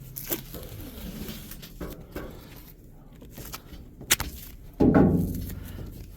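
Handling and taping up a torn plastic bag of potting soil: scattered small knocks and rustling, with a louder burst of rustling noise about five seconds in.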